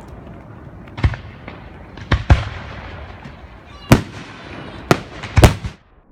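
Fireworks display: a continuous rumble and crackle with sharp aerial shell bangs, one about a second in, two just after two seconds, one near four seconds and two around five seconds. The sound cuts off suddenly just before the end.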